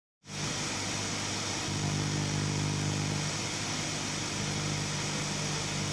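A steady motor hum with a constant hiss over it, starting abruptly just after the beginning.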